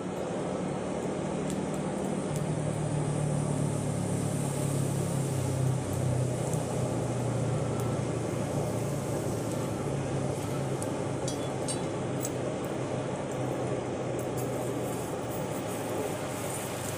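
Small electric air blower running steadily, forcing air through a hose into a charcoal forge fire: a continuous rush of air and flame over a low motor hum.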